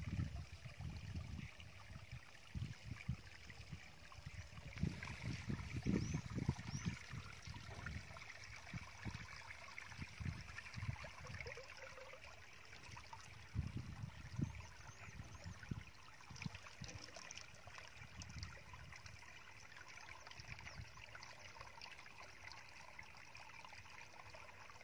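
Water trickling into a shallow muddy pool, with scattered low rumbles, most in the first half.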